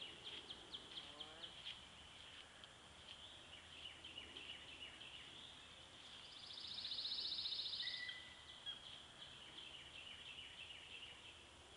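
A faint outdoor chorus of small animal calls: high chirps repeated several times a second, with a louder rapid trill for about two seconds near the middle.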